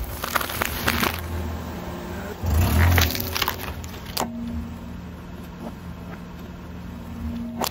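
A car's tyre rolling over small objects on asphalt: crackling and crunching about half a second in and again, louder, around three seconds in, over a low rumble. A sharp click follows, then a quieter stretch with a low steady hum.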